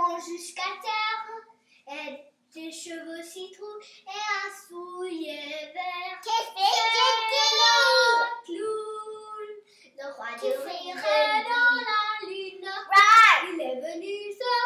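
A child singing a French children's song unaccompanied, with a loud high rising note near the end.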